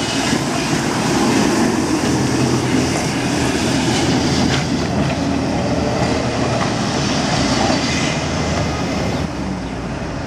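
Tatra tram running past on street track: a steady rumble of wheels on the rails with some clatter, dropping a little near the end as it pulls away.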